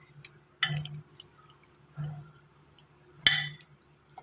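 Metal spoon stirring beef chunks through a thick yogurt marinade in a glass bowl: wet squelching, with the spoon knocking and scraping against the glass several times, the sharpest clink about three seconds in.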